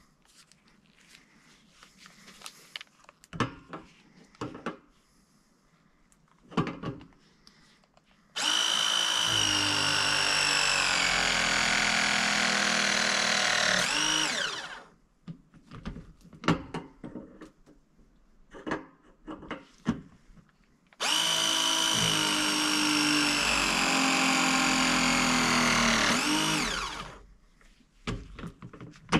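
Battery-powered ProPress tool pressing fittings onto copper water pipe: two press cycles, each about six seconds of motor whine slowly dropping in pitch and ending in a short rising sweep as it stops. Light clicks and knocks of handling the tool and pipe come between them.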